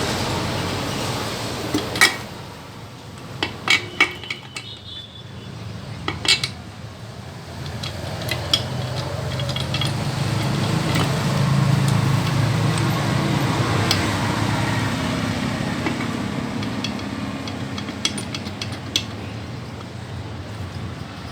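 Metal tools and engine parts clinking and tapping now and then, a dozen or so separate clinks, over a low steady rumble that swells through the middle.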